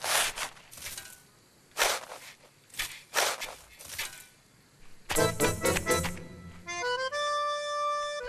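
Cartoon sound effects of snow being dug and flung fast with a shovel: about six quick swishes over the first few seconds. Music comes in about five seconds in with a quick flurry of notes, then settles into held chords.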